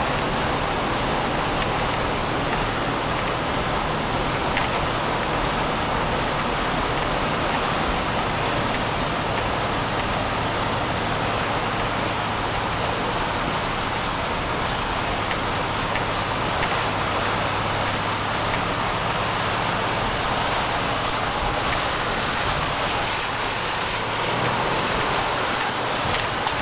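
Steady rush of water and mud thrown against the underbody and wheel arches as a 4x4 drives through a flooded mud track, heard from inside the cab, over a low steady engine drone.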